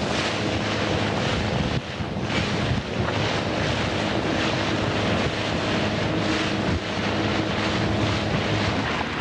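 Boat engine running steadily, with wind buffeting the microphone from a moving boat.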